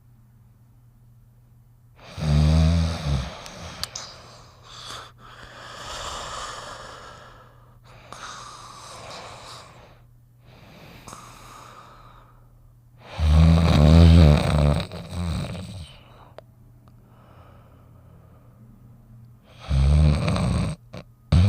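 Cartoon dog snoring: three loud, low, rasping snores, about two, thirteen and twenty seconds in, with softer breathy, whistling breaths between them.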